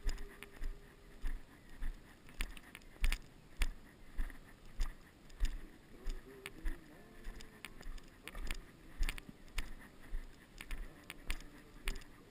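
Footsteps of people walking on a dirt and gravel path at a steady pace of about two steps a second, each step a short thud.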